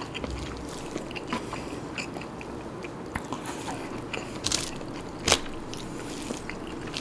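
Close-miked eating sounds: fingers mixing curry-soaked nasi kandar rice on a plastic-lined wrapper, with chewing. Scattered small wet clicks and crackles, with a sharper click about five seconds in.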